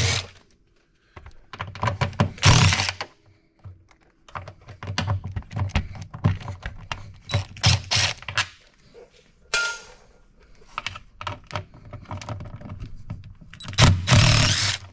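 DeWalt 20V cordless impact driver with an 8mm socket on extensions and a U-joint, spinning out clutch-cover bolts in several short bursts, loudest about two seconds in and near the end. Clicks and rattles of the socket and loosened bolts come in between.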